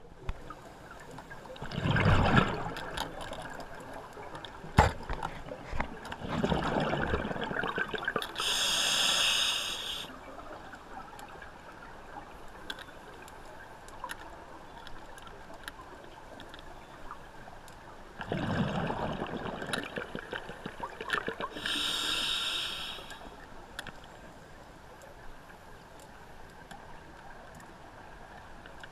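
A scuba diver's regulator breathing underwater: bursts of bubbling exhalation, each followed by a hiss of inhaled air, in two breath cycles about 13 seconds apart.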